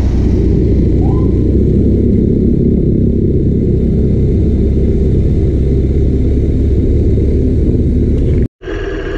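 A moving road vehicle, a steady loud low rumble of engine and road noise. It breaks off abruptly near the end, and a steadier engine hum follows.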